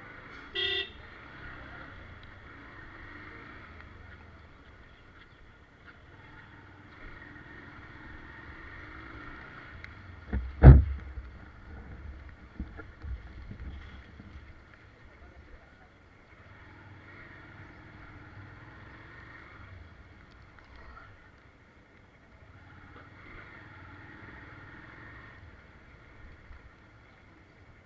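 Street traffic passing, with a short vehicle horn toot near the start. About ten seconds in there is one loud thump, followed by a few smaller knocks.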